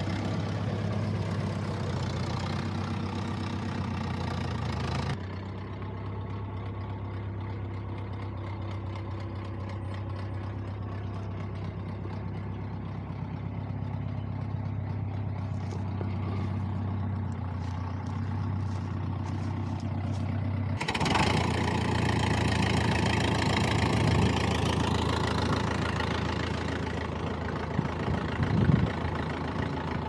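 David Brown 1200 tractor engine running steadily at idle.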